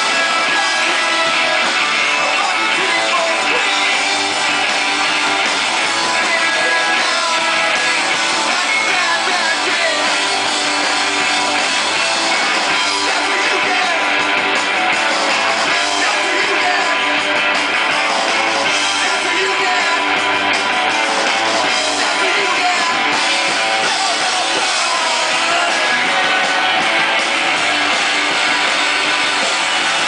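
Live rock band playing: electric guitars, bass and a drum kit, with a man singing.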